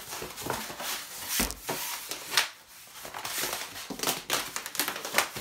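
Sheets of paper-faced foam board being handled and slid over one another and over a cutting mat: rustling and scraping broken by several sharp knocks, the loudest about two and a half seconds in.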